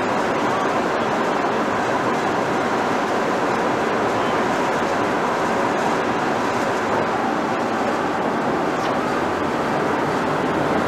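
EM2 electric locomotive running, a steady, even whooshing noise with no distinct tones or knocks.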